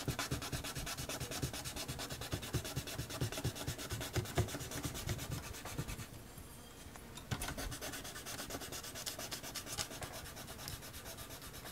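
Hand sanding of a Commodore 64's plastic bottom case with a small piece of sandpaper, rubbed back and forth in quick short strokes around a snapped-off screw standoff to roughen the plastic so the glue will key. The rubbing eases off for about a second some six seconds in, then resumes.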